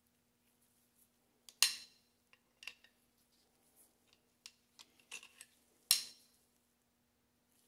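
Light metal clinks and ticks from handling a steel shoulder bolt and steel grinder-frame parts, with two sharper clinks that ring briefly, one about one and a half seconds in and one near six seconds.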